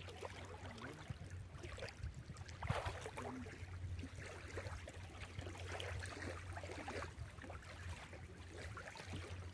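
Faint water lapping and gurgling over a low steady hum.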